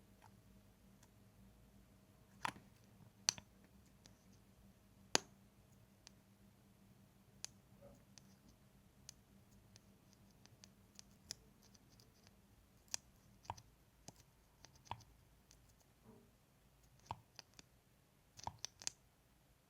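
Close-miked ASMR mouth sounds: sparse, quiet wet clicks and smacks of lips and tongue. A few louder ones come in the first five seconds, and a quick cluster comes near the end.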